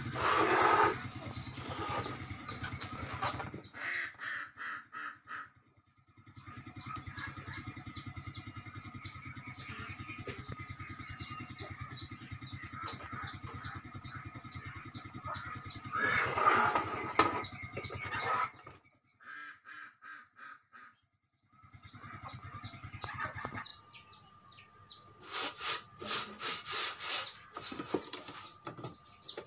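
Small birds chirping over and over, over a low steady hum. A few loud bursts of clatter and rustling come from an old metal amplifier case being handled.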